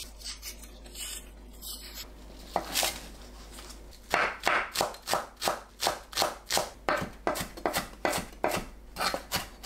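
Chef's knife chopping green onion stalks on a wooden cutting board. A few soft cuts come first, then from about four seconds in there are steady, even chopping strokes, about three a second.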